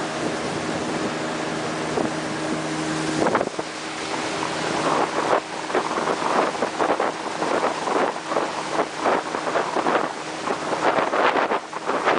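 Motorboat engine running steadily under way, with water rushing past the hull. From about three seconds in, wind buffets the microphone in irregular gusts.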